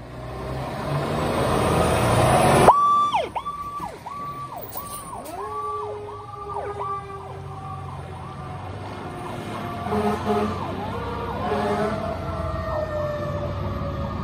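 Fire engine siren in a fast electronic yelp, rising and falling about twice a second, with a second lower siren tone slowly falling beneath it and short horn blasts around ten to twelve seconds in. Before it, a loud rising rush of noise cuts off abruptly about three seconds in.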